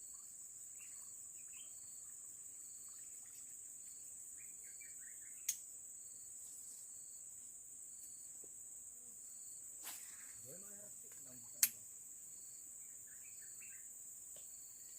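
Insects in the forest making a steady high-pitched drone, with a second insect call pulsing about three times a second beneath it. Three sharp clicks cut through, about five, ten and twelve seconds in, the last the loudest.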